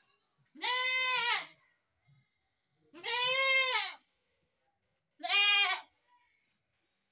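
A young goat bleating three times, each call rising and then falling in pitch, the third one shorter.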